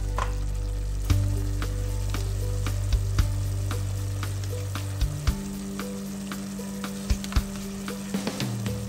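Thick curry sauce sizzling and bubbling in a metal pot while a silicone spatula stirs it, with scattered sharp clicks of utensils against the pot as spoonfuls of yogurt are added.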